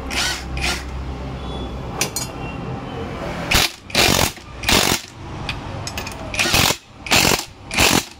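Cordless impact wrench hammering in short bursts of under a second each, trigger pulled again and again to run down the nuts on an auto-rickshaw engine's mounting bracket. There are two bursts near the start, then two quick groups of three from about three and a half seconds in.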